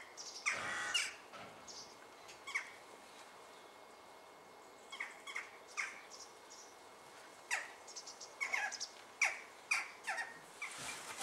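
Corvids calling: scattered short calls, some single and some in quick runs of two or three, with a denser burst of calls about half a second in.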